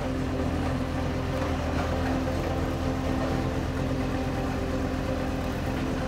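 Diesel engine of heavy construction machinery running steadily at an even speed, a constant hum with no change in pitch or level.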